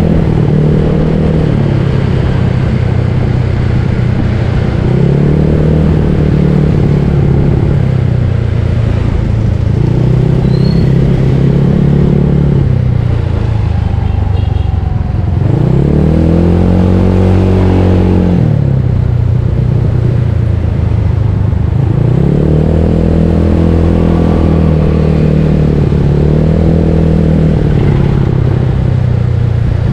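Bored-up Yamaha Mio Soul scooter's single-cylinder engine running while being ridden. Its pitch rises and falls several times as the rider speeds up and eases off, with the biggest rise about halfway through.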